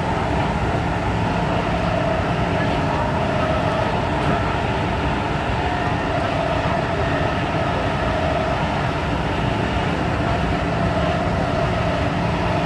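MTR M-Train electric multiple unit running at speed through a tunnel, heard from inside the car: a steady rumble of wheels on rail with a steady whine over it.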